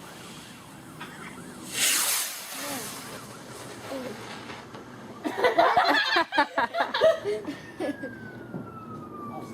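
Consumer fireworks going off: a short hissing whoosh about two seconds in, then a burst of rapid crackles and short whistles around the middle, and a long falling whistle near the end.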